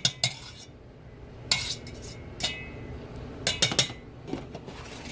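Metal utensils clinking against cooking pots, about eight separate sharp clinks with a short ring, several close together a little after halfway.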